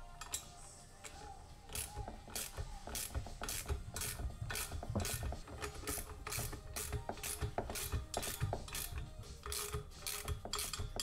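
Ratchet wrench clicking in quick repeated strokes, about three a second, as it runs the 16 mm nuts onto the bolts of a new Guibo flex disc on a BMW driveshaft.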